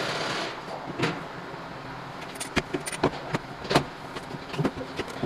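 Scattered sharp metallic clicks and taps of hand tools and metal parts being handled, at an uneven pace. A steady hiss in the background cuts off about half a second in.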